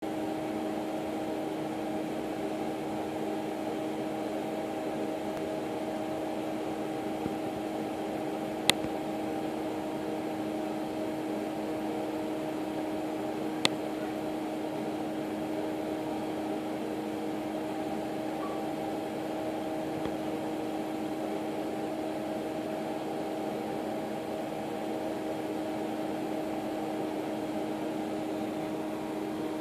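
Steady electric motor hum with an even hiss beneath it. Two sharp clicks come about nine and fourteen seconds in.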